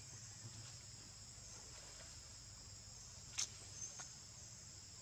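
Faint, steady high-pitched chorus of insects, with a single sharp click about three and a half seconds in.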